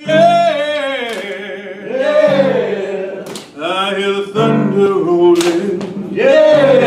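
A male chorus singing a slow chain-gang blues: a lead voice over the others' low, sustained hum, with a sharp strike about every two seconds.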